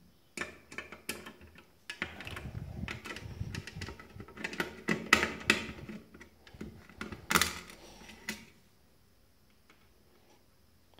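Small precision screwdriver turning out Phillips screws from a thin metal casing: a quick run of small clicks, scrapes and knocks that stops about eight and a half seconds in.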